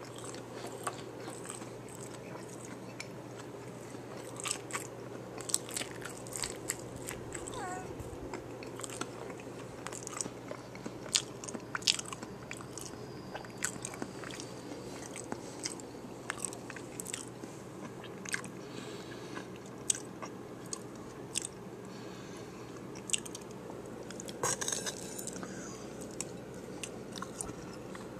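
Mouth chewing and biting a taco bowl in a hard taco shell: irregular sharp crunches and wet mouth clicks over a steady low hum.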